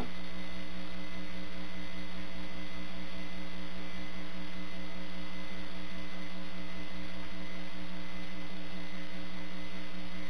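Steady electrical mains hum in the audio feed: an unchanging buzz of several fixed tones over faint hiss. It cuts in abruptly, replacing the room sound.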